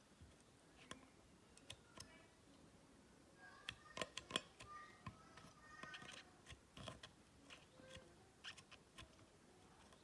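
Faint, scattered small clicks and taps, busiest in the middle, with a few faint short tones among them: handling noise.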